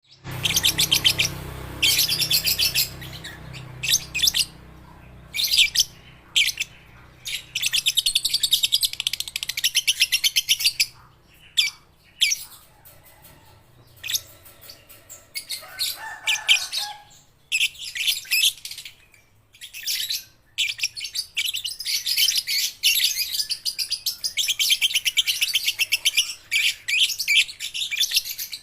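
Young lovebirds chattering in rapid, high-pitched trills, in runs of one to three seconds broken by short pauses.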